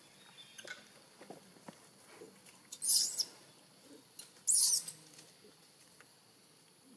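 Newborn long-tailed macaque giving two short, high-pitched squeals, the first about three seconds in and the second about a second and a half later, with faint ticks in between.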